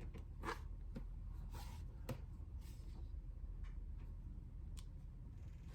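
Thin onion-skin paper pages of a journal being turned and handled by hand: several short, crisp rustles and ticks at irregular intervals, over a low steady hum.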